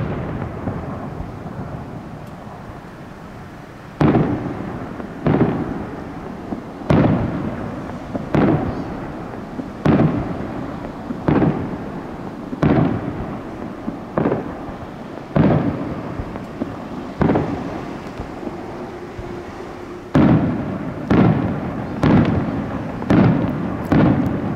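Fireworks bursting in a series of sudden booms, each one trailing off. The first comes about four seconds in, then one every second and a half or so, with a pause past the middle and quicker bursts near the end.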